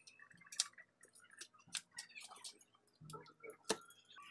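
Long digging bar being driven into wet, muddy soil at the bottom of a pit: faint scattered clicks and scrapes, with a few sharper knocks.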